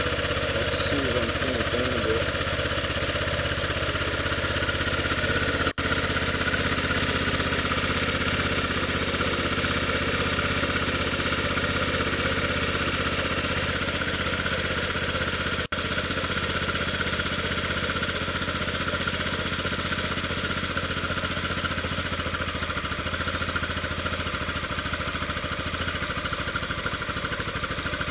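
1998 Yamaha Grizzly 600 ATV's single-cylinder four-stroke engine idling steadily and a little hard, kind of as if the choke were on. The sound cuts out for an instant twice.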